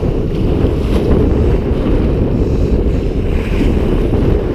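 Wind buffeting the microphone in a steady low rumble, with surf washing over the rocks beneath.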